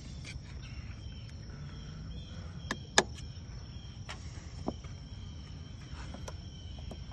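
Insects trill steadily, high-pitched, in the background. Over them come a handful of sharp clicks from a hand scraper knocking against the boat's hull and transducer as it is worked into the 5200 sealant, the loudest about three seconds in.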